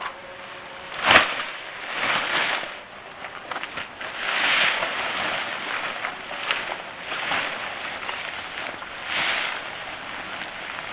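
Tent fabric rustling and swishing in repeated swells as the tent is handled, with one sharp snap about a second in.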